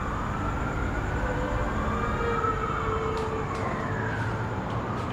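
A steady low rumble under a faint tone that slowly rises and falls, with a few faint clicks toward the end: a dark, train-like drone from a horror film's soundtrack.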